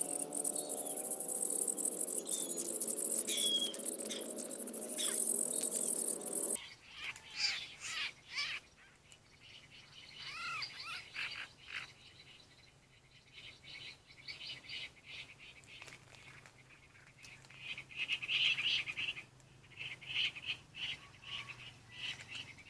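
Background music over a high insect-like hiss for the first six seconds or so. It cuts off and gives way to small birds chirping in short, gliding calls, with a few light rustles and clicks of handling as a bird stuck on a glue trap stick is taken down.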